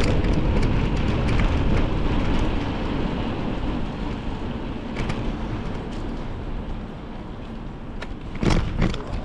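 Rushing road noise while riding a bicycle, passing traffic and wind on the microphone, loudest at the start and slowly fading. A few sharp clicks sound about five seconds in and near the end.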